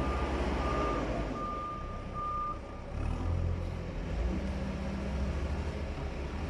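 A reversing alarm beeps at an even pace over the low, steady running of a heavy machine's engine, then stops about two and a half seconds in while the engine keeps running.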